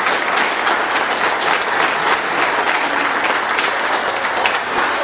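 A small crowd applauding, with dense, steady hand clapping.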